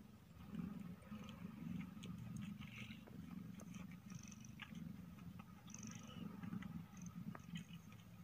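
Nursing mother cat purring steadily in a low, pulsing rumble, with faint small clicks and brief high squeaks from the suckling newborn kittens over it.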